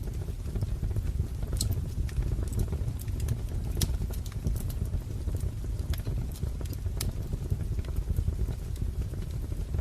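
Wood fire crackling: a steady low rumble from the burning logs with sharp pops and snaps scattered irregularly through it.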